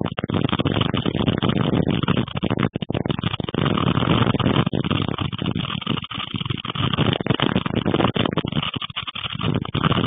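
Strong storm wind buffeting the microphone: a loud, heavy rushing rumble that rises and falls in gusts, easing briefly about six and nine seconds in.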